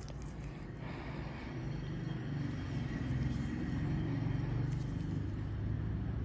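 Steady low background rumble with a hiss that grows a little louder about a second in.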